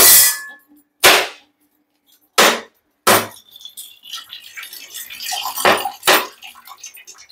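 Sharp cracking blows on a mature coconut's hard shell, several about a second apart, as it is broken open. Coconut water trickles into a steel pot in between, and two more cracks come near the end.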